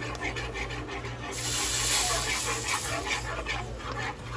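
Wire whisk stirring a pan of flour-thickened gravy, a rhythmic swishing and scraping against the pan at several strokes a second, with a louder hissing stretch in the middle.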